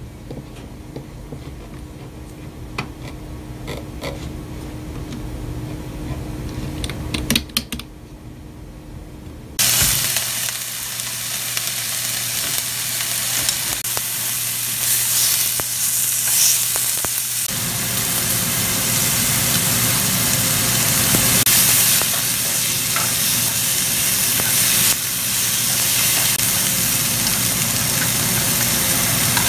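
Pork belly and sliced mushrooms sizzling in a frying pan while being stirred and turned; the loud sizzle starts suddenly about ten seconds in. Before it, a low hum with a few computer keyboard clicks.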